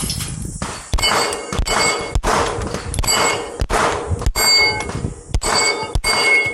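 A string of about nine handgun shots, half a second to a second apart, each followed by the clang and ring of steel plates being hit.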